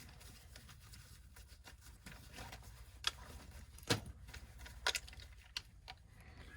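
Faint clicks and taps from handling a furnace blower's run capacitor and multimeter test leads while its capacitance is checked, four or five sharp ones from about three seconds in, over a low steady hum.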